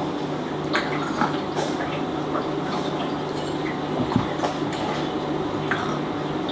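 A French bulldog puppy nosing at a tennis ball on carpet: short, scattered sniffs and scuffs over a steady background hum.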